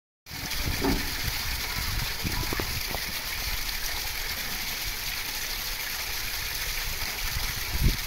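Steady rush of running water in an American beaver's pool, with a few soft splashes as the beaver swims to a concrete step.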